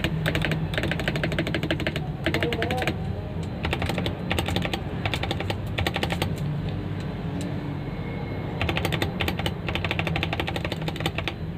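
Typing on a CIY 68 mechanical keyboard with Aflion switches and Cherry-profile keycaps: fast runs of keystroke clicks that thin out briefly twice.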